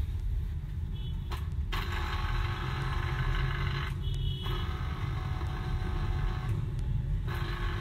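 The small electric motor of a Braun 20-watt citrus juicer, on the bench with its base open, whirring steadily under power. It starts about two seconds in, cuts out briefly twice and starts again each time. It runs when its switch contacts are held closed by hand, showing that the motor is sound and the fault lies in the switch contact points.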